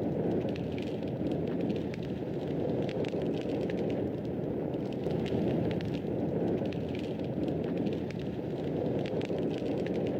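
Wood fire burning with a steady low rushing roar and frequent small crackles and pops.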